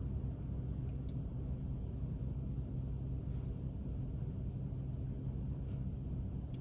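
A steady low hum or rumble with no change in pitch, with a few faint ticks over it.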